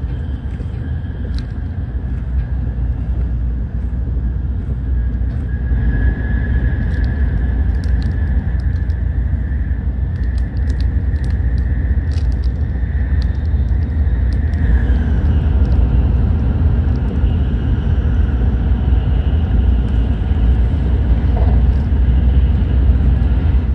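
Tokaido Shinkansen train running at speed, heard inside the passenger car: a steady low rumble, with a faint high steady tone that fades out about 15 seconds in. The rumble grows a little louder after the first few seconds.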